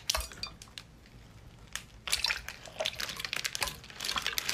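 Sea anemones and their liquid sliding out of a clear plastic container and landing on a plate: wet squelching and splatting with dripping, sparse at first and denser from about halfway through.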